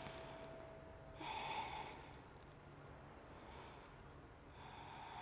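A woman breathing audibly during a held yoga stretch: a louder breath about a second in, then two fainter breaths near the end.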